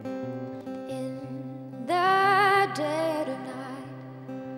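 A live song: acoustic guitar picking steady notes, joined about two seconds in by a woman singing one held, wavering phrase that fades a little after three seconds.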